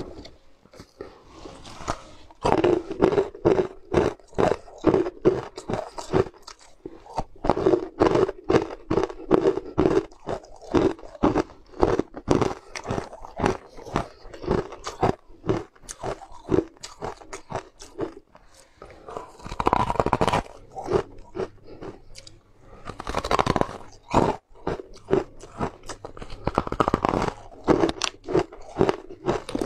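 Crunching and chewing of sugar-frosted crystal sweets, close to the microphone: rapid, dense crunches that swell into louder runs with each new bite.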